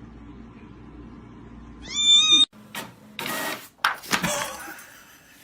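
A cat meows once, about two seconds in, followed by a few brief rustling or scuffing noises.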